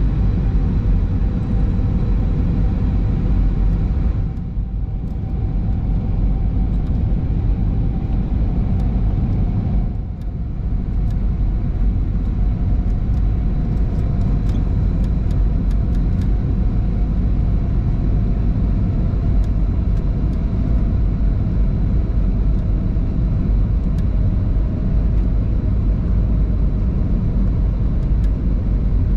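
Airbus A320 cabin noise: a steady, loud, low rumble of the engines and rushing air, with a faint hum of steady tones. It dips briefly twice, about four to five seconds in and again at about ten seconds.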